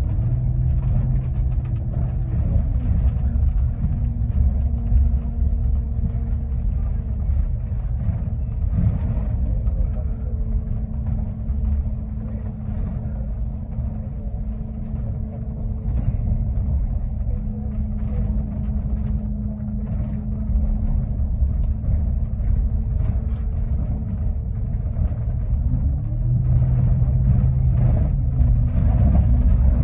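Bus engine and road noise heard inside the cabin while driving: a steady low rumble with a drivetrain whine whose pitch rises and falls near the start and again near the end.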